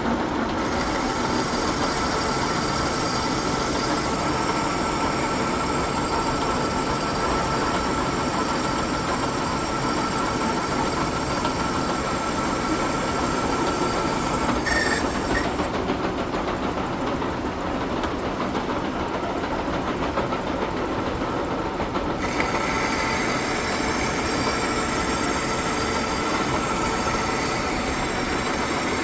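Metal lathe taking a roughing cut: a loud, steady machining noise with high whining tones over it. The high whine drops away for about six seconds past the middle, then comes back.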